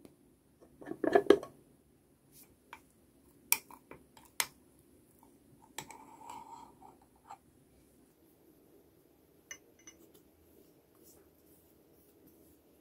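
A screw lid twisted off a glass jar, then a metal spoon clinking against the glass and scraping through thick peanut butter as it is scooped out. The loudest clatter comes about a second in, followed by a few sharp clinks and a short scrape.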